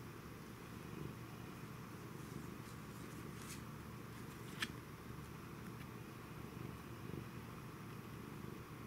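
Domestic cat purring steadily, with two short sharp clicks about three and a half and four and a half seconds in.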